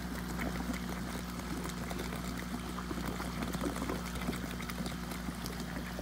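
Airlift compost tea brewer running just after switch-on: water and air gushing from the PVC return pipe into the bucket, splashing and bubbling steadily with many small bubble pops, before the vortex has formed. A steady low hum from the electric air pump driving it runs underneath.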